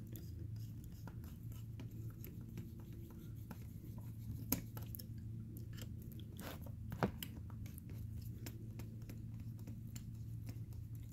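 Phillips screwdriver turning out the small fan screws of an all-metal MK8 extruder: faint scattered clicks and scrapes of the driver tip in the screw heads, with two sharper clicks about four and a half and seven seconds in, over a steady low hum.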